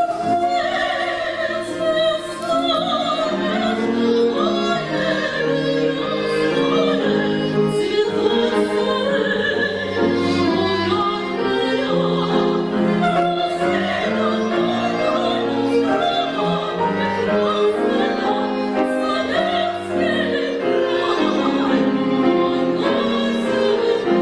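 Music: a woman singing in a classical, operatic style over an accompaniment with strings.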